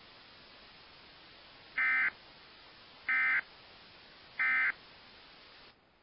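Three short buzzy digital data bursts, about 1.3 seconds apart, each lasting about a third of a second. They are the EAS/SAME end-of-message code (three EOM bursts) that closes a NOAA Weather Radio warning. A faint steady hiss lies under them and cuts off just before the end.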